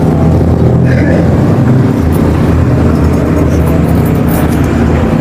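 Loud, steady low engine rumble, with faint clicks and rustles between about two and four and a half seconds in.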